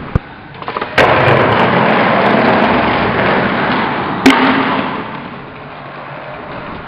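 Skateboard rolling on rough street pavement: a sharp wooden clack about a second in as the board hits the ground, then a loud steady wheel rumble, a second sharp clack of the board striking the ground a little past four seconds, and the rolling fading away.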